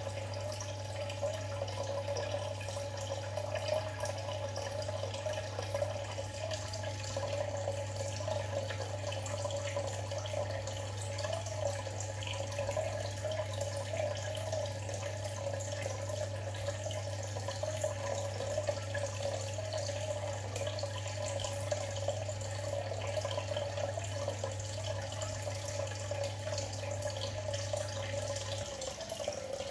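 Aquarium water trickling and bubbling with small drips, over a steady low hum that stops shortly before the end.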